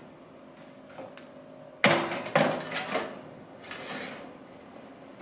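Kitchen handling noises at a countertop oven: a sharp knock about two seconds in, a second knock just after, and a short run of clattering and rustling, then a softer rustle about a second later, over a faint steady hum.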